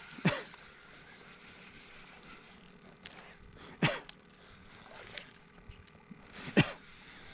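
Three short water splashes, about three seconds apart, as a hooked trout is fought at the surface.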